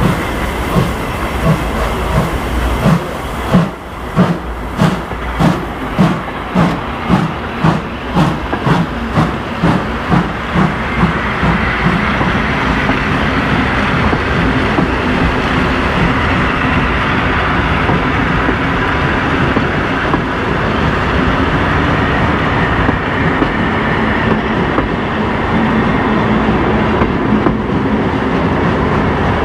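Train wagons' wheels clicking over rail joints as the carriages roll past close by. The clicks come faster as the train picks up speed leaving the station. After about twelve seconds they merge into a steady rolling rumble.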